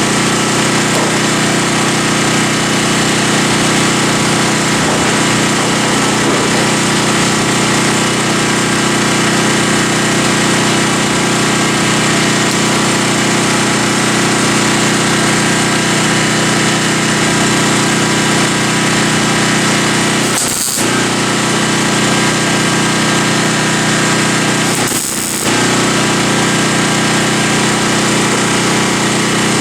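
A power tool running steadily while working sheet metal. It is briefly interrupted twice, about two-thirds of the way through and again a few seconds later.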